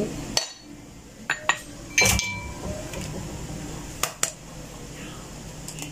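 Ceramic dishes clinking: several sharp clinks and knocks, the loudest about two seconds in with a short ring, as a small ceramic dish and a spatula knock against a ceramic mixing bowl.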